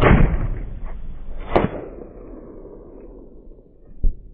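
A rifle shot with a long echo rolling off over the open ground, then about a second and a half later a sharper crack from the bullet striking the target far downrange. A short dull thump comes near the end.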